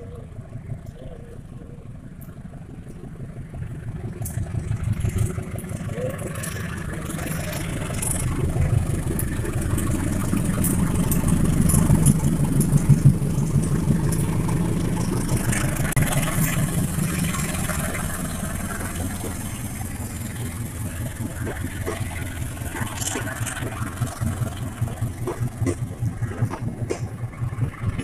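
Diesel locomotive hauling a passenger train away from the station under power. Its engine grows louder to a peak about twelve seconds in as it passes, then the carriages roll by with repeated clacking of wheels over the rail joints.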